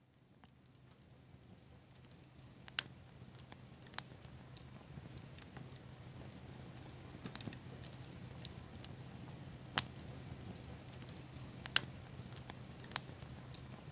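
Bonfire of pine cones and seed pods crackling, with about six sharp pops over a steady soft hiss. The sound fades in over the first couple of seconds.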